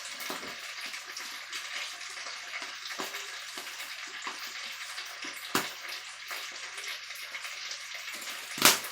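Food sizzling and crackling steadily in a hot pan while seasonings are added. Two sharp clicks sound, one a little past halfway and a louder one near the end.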